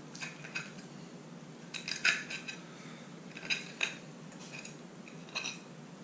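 A metal fork clinks against a plate as a piece of baked fish is cut off. The clinks come in several short clusters of sharp, ringing ticks.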